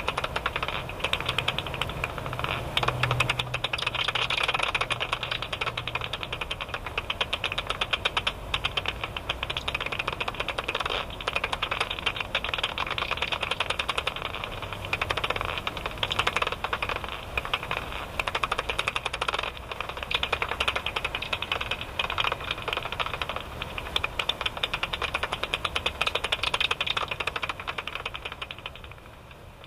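Japanese house bat (Pipistrellus abramus) echolocation calls made audible by a bat detector: a fast, continuous train of dry clicks, like rapid typing.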